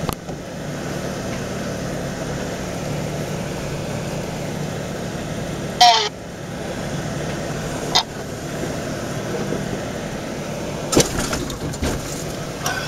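Four-wheel-drive vehicle's engine running steadily at low speed while crawling a rocky trail, with a sharp, squealing creak about six seconds in, a click at eight seconds, and a few knocks and rattles near the end as it jolts over rocks.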